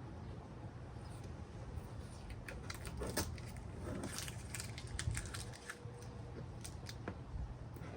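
Scattered light clicks and small rattles of tools and hardware being handled, busiest in the middle, over a steady low hum.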